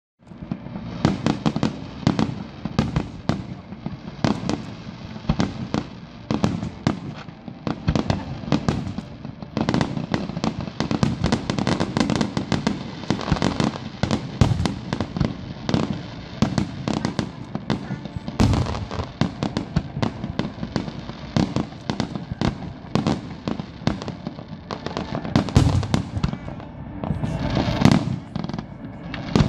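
Aerial fireworks going off in quick succession: a continuous run of bangs and crackles, with heavier booms about two-thirds of the way through and again near the end.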